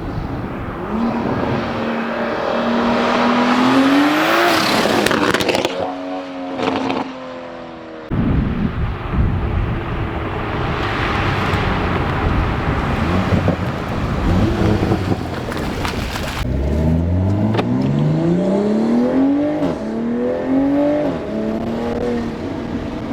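Toyota A90 Supra's B58 turbocharged inline-six, with a catless downpipe and resonator delete, accelerating hard: its pitch climbs and drops back at each gear change, twice in runs of rising tone. In the middle comes a long stretch of loud rushing noise.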